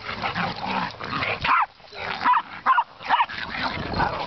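Dogs barking during rough play-fighting, with a run of several short, sharp barks from about a second and a half in.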